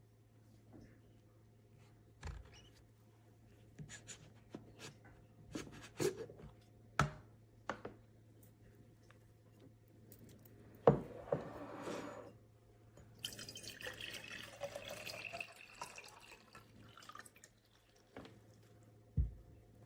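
Scattered light clicks and knocks of things being handled, a sharp knock about 11 seconds in, then water running or splashing for a few seconds, with dripping.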